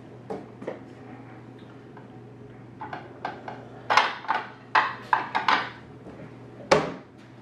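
Dishes clinking and clattering as a plate is taken down from a kitchen cabinet shelf, with a cabinet door knocking. A quick run of sharp clatters comes about four to five and a half seconds in, and one more loud knock comes near the end.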